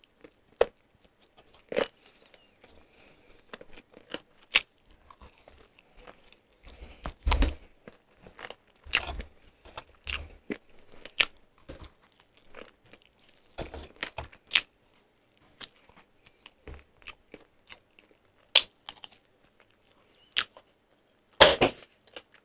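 Close-miked chewing of crispy-crusted fried chicken, gnawing the meat off the bone: irregular crunches and wet mouth clicks with short pauses between, loudest just before the end.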